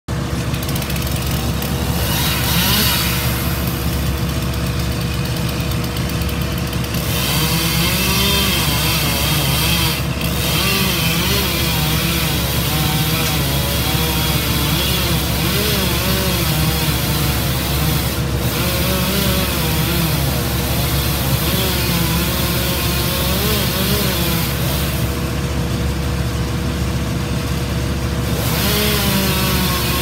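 Chainsaw running and cutting into a tree trunk, its pitch wavering as it works, over the steady drone of a wood chipper's engine.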